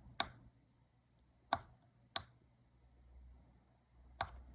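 Four sharp, short clicks at irregular intervals, over a faint low hum.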